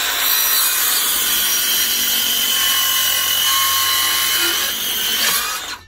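Silverline 18-volt cordless circular saw with a 150 mm blade cutting through a length of 3x2 softwood at its full 48 mm depth, the motor's high whine holding steady under load without lagging. The sound stops sharply near the end as the cut finishes.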